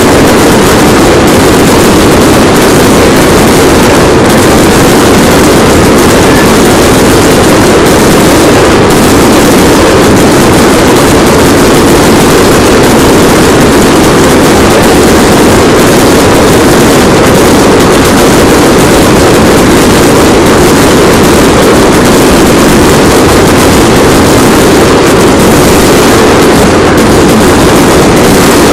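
Ground firework fountains spraying sparks, making a loud, steady rushing hiss with no separate bangs.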